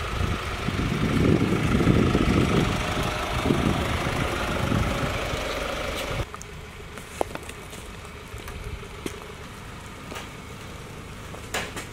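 Mercedes Sprinter 317 CDI's four-cylinder turbodiesel running as the van drives close past, loudest a second or two in. About halfway through it cuts off abruptly to a much quieter background with a few faint clicks.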